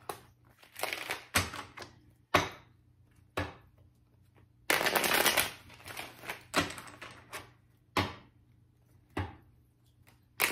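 A tarot deck being shuffled by hand: a string of short riffles and snaps of the cards, roughly one a second, with one longer riffle about five seconds in.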